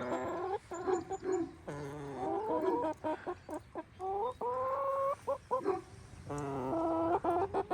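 Several chickens clucking and calling: drawn-out rising squawks that come one after another, with short clucks between them.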